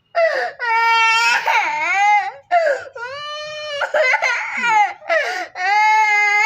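Young child crying loudly in a string of long, high-pitched wails broken by short gasps for breath, a tantrum cry.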